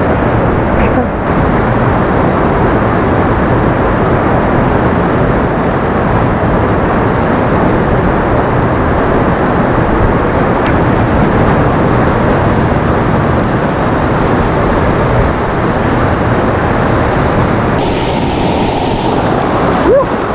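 Rushing water of a rain-swollen canyon creek, a loud steady rush with no break.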